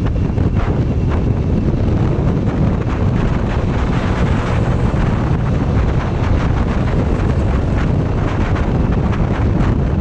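Steady wind buffeting on the microphone of a camera on a moving motorcycle, with the rumble of the ride beneath it.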